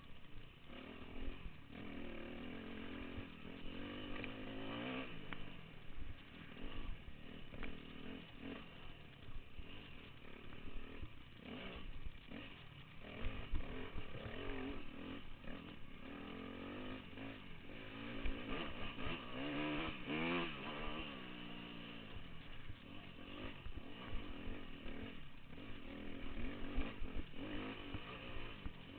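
Dirt bike engine ridden hard off-road, revving up and down as the rider works the throttle and gears, with a big rise and fall in pitch about two-thirds of the way in. Occasional short thumps come through as well.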